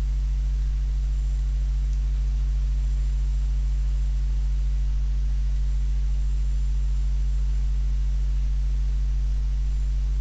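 Steady low electrical hum, unchanging throughout, with a faint thin high-pitched whine above it.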